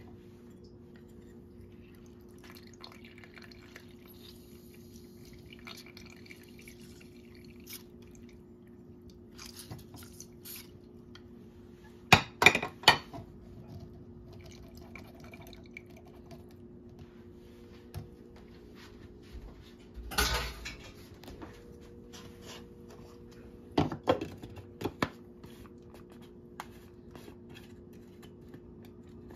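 Kitchen handling sounds from dishes and utensils: scattered small clicks, three sharp knocks in quick succession about twelve seconds in, a short clattering rush around twenty seconds in, and a few more knocks a few seconds later, over a steady low hum.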